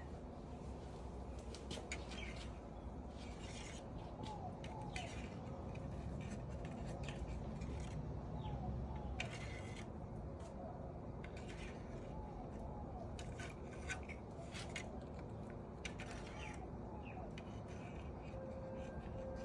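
Outdoor background with scattered short chirps typical of small birds, mixed with irregular sharp clicks. A faint repeated tone comes in near the end.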